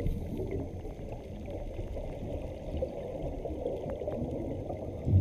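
Water sound effect: a steady low wash of moving water, with a few faint ticks.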